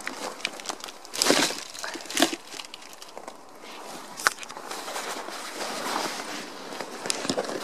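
Plastic carrier bag rustling and crinkling as it is handled and set onto a car's back seat, with a few short rustling bursts and a sharp click about four seconds in, amid footsteps.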